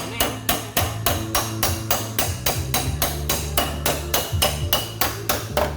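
Body-repair hammer tapping on car sheet metal in quick, even strokes, about four a second, as the panel's body lines are reshaped, over background music.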